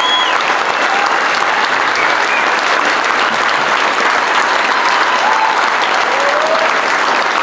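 Large audience applauding steadily, dense clapping with a few faint voices calling out in the crowd.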